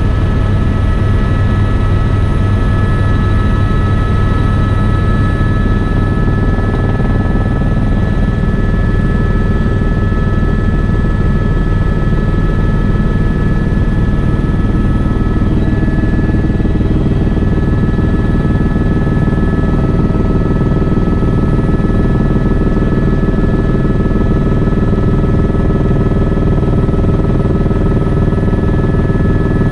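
Tour helicopter in flight: a loud, steady drone with a few high steady tones over it, the pitch shifting slightly about halfway through.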